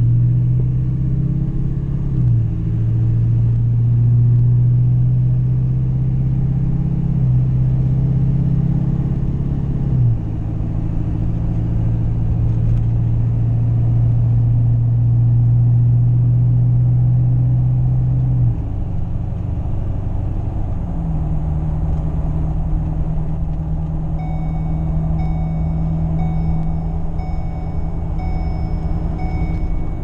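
Inside the cab of a Ford F-250, the 6.7 Powerstroke V8 turbodiesel drones steadily at road speed, its pitch stepping up or down several times. In the last few seconds a faint high chime joins it: the seat belt minder warning that the driver is unbuckled.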